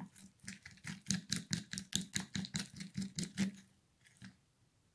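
A stick stirring a thick paste in a small glass cup, clicking and scraping against the glass several times a second, stopping about three and a half seconds in.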